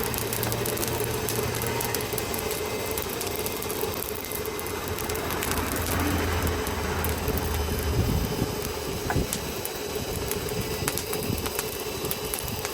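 A machine's motor running steadily, with many scattered clicks and light knocks over it.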